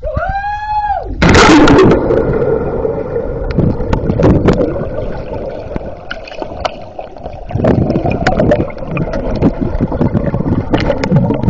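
One long yell from a jumper, then a loud splash about a second in as he hits the water. After that the microphone is underwater: muffled bubbling and rumbling with many sharp clicks and knocks.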